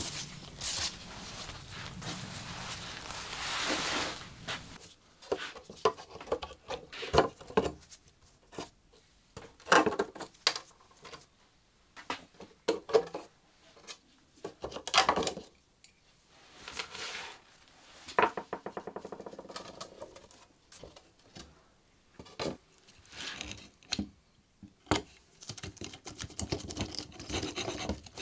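Old upholstery fabric rustling as it is pulled off the seat, then scattered clicks, taps and knocks of tools, tacks and wood as the stool's wooden seat frame is taken apart.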